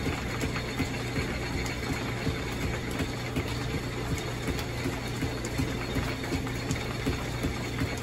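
Belt-driven antique drill press running and cutting into a malleable cast iron rail section: a steady machine hum with a light, regular ticking about three times a second.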